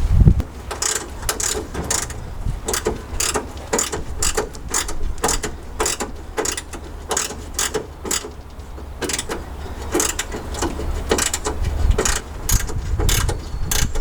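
Socket ratchet clicking in quick runs as the 10 mm fixings holding the radiator are undone, with a short lull about halfway through.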